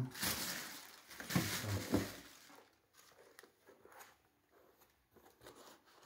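Tissue paper rustling and crinkling as shoes are handled and lifted out of a shoebox, with a few sharper crackles in the first two seconds, then only faint light handling noises.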